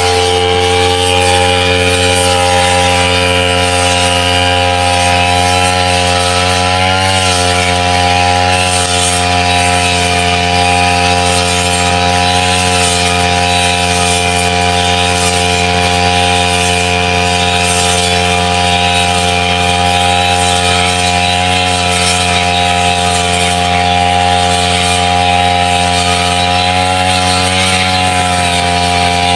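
Backpack brush cutter engine running steadily while its blade cuts wet grass, its pitch wavering briefly about seven seconds in and again near the end.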